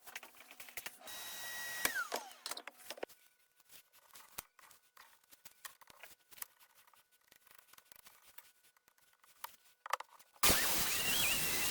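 A power tool motor whines briefly, then winds down in pitch and stops, followed by scattered small clicks and knocks of handling tools and workpieces. Near the end a louder power tool starts suddenly and runs steadily.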